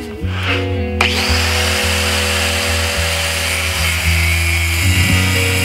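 An angle grinder with a thin cut-off disc starts about a second in and cuts steadily into a steel bar held in a vise. Background music plays throughout.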